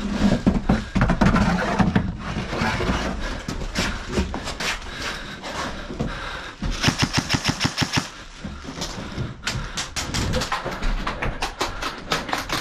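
Airsoft electric guns firing several rapid bursts of full-auto fire, each a fast even string of sharp cracks. Heavy footsteps and gear movement on wooden boards come first.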